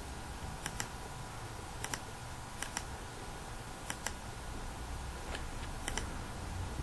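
Computer mouse clicking: about six quick press-and-release double clicks, spaced irregularly over a few seconds, with the pointer on the compiler's Compile & Run button.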